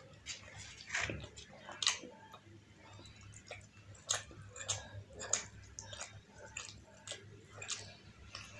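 Chewing puri soaked in egg masala gravy: wet, irregular clicking and smacking mouth sounds, several to a second.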